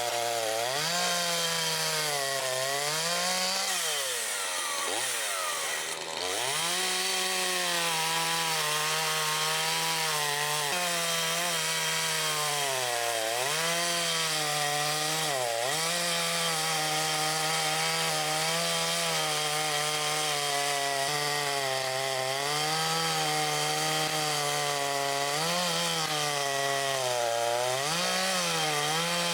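Makita DCS5121 50 cc two-stroke gasoline chainsaw running at high revs, its engine note sagging and recovering several times, with a long deep drop about four to six seconds in, as the engine is loaded, typical of cutting through wood.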